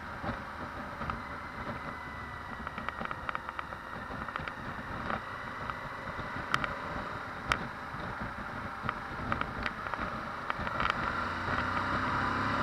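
Suzuki V-Strom 1050XT's V-twin engine running steadily while the motorcycle cruises, with wind and road noise at a camera mounted by the handlebars; it grows somewhat louder near the end.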